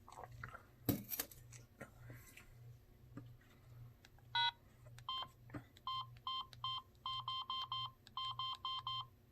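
Samsung SGH-T309 flip phone's keypad beeping as its buttons are pressed to scroll through the menus: short, evenly pitched key tones in quick runs of two or three a second through the second half. Before them, a few sharp clicks from the phone being handled, the loudest about a second in.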